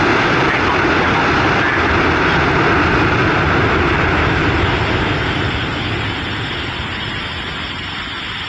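Airbus A330-343 airliner on its landing roll, its Rolls-Royce Trent 700 jet engines running loud with a steady roar that eases off over the last few seconds as it slows.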